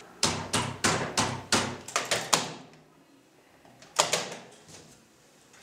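A quick run of about ten sharp knocks, about four a second, over the first two and a half seconds, then one louder single knock about four seconds in.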